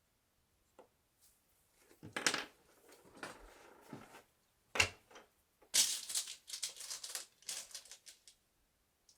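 Wooden parts and hardware being handled while a wooden bed is assembled: scattered knocks and scrapes, a sharp click about halfway through, then a couple of seconds of rattling and scraping.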